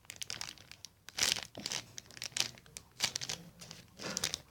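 Crinkling and crackling of a handmade strawberry squishy as it is squeezed and turned in the hands, in irregular bursts about once a second.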